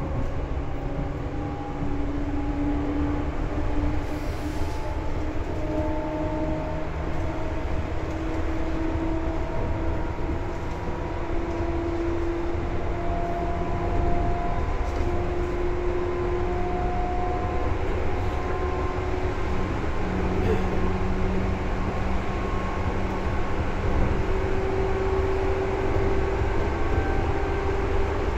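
Seibu 2000 series electric train running, heard from inside the car: a steady low rumble of wheels on the track with a whine from the traction equipment under the floor that climbs slowly in pitch.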